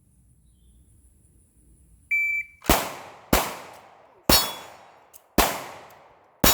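Shot timer beeps once, briefly, about two seconds in. Then come five pistol shots over roughly four seconds as the two shooters fire at steel targets.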